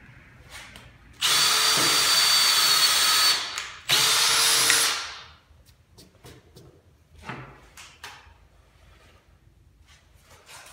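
A handheld power tool's motor run in two bursts, about two seconds and then about a second long, with a steady high whine and the second burst winding down at its end. A few light knocks follow.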